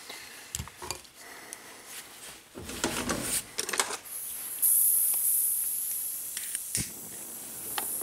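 Butane soldering iron being handled with a few clicks and knocks. About halfway through, a steady high hiss of butane gas starts suddenly as the iron is lit, then slowly eases off.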